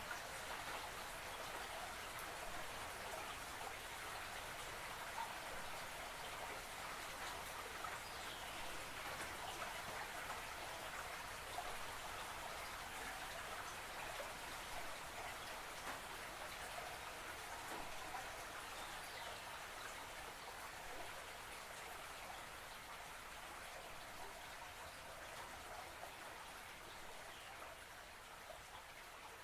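Steady pattering and trickling of a creek's flowing water, with a few faint falling whistles over it; it slowly fades toward the end.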